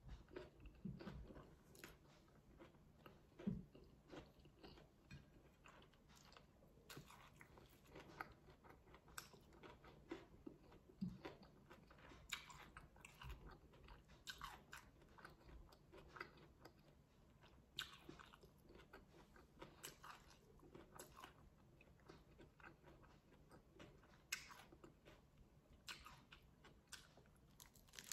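A person chewing and biting into a lettuce-leaf taco: faint, irregular wet crunches and mouth clicks.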